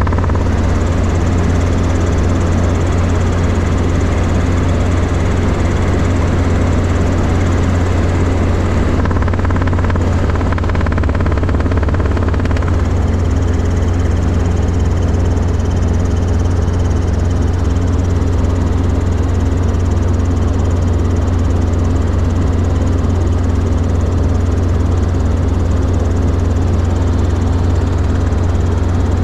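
Robinson R22 Beta II helicopter running steadily: its four-cylinder Lycoming piston engine and rotors make a loud, unchanging drone.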